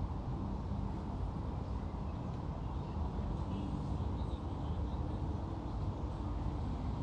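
Steady low outdoor rumble, with a few faint high chirps in the middle and near the end.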